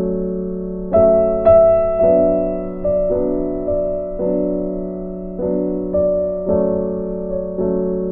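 Background piano music: soft, sustained notes struck about every half second to second.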